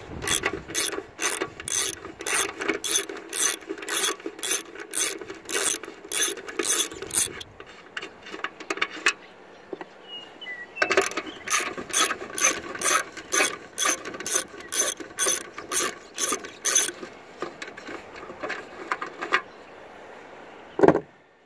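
Socket ratchet clicking in quick, regular strokes, about three a second, as the engine mounting bolts are backed out of the lawn mower deck. Two long runs with a pause between, then one knock near the end.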